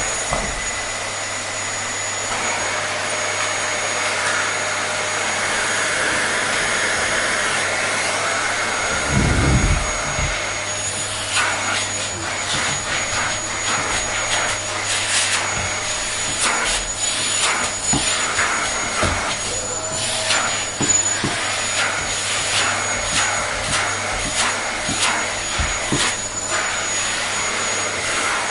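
Vacuum cleaner running steadily with a thin high whine over its motor noise. A low thump comes about nine seconds in, and from about eleven seconds on, irregular clicks and rattles sound over the running motor.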